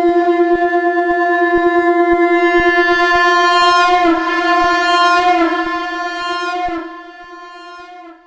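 Shankh (conch shell) sounding one long held note on F, wavering in tone partway through, then dying away shortly before the end.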